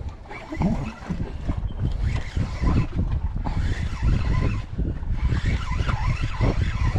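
Wind rumbling and buffeting on the microphone over open sea, while a spinning reel is cranked in.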